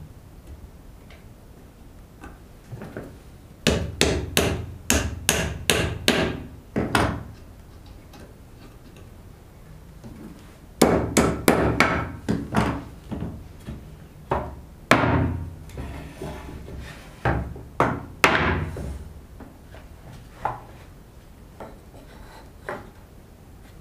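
Hammer blows on wood, likely driving dowelled pine joints together: a quick run of about eight knocks, a pause, a second run of about seven, then a few single knocks further apart.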